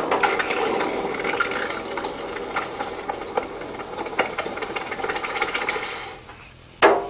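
Hot half-inch round steel bar being quenched in water, hissing and crackling steadily for about six seconds as the water boils off it, then dying away; the bar is being cooled along part of its length so it can be held. A short sharp clatter follows near the end.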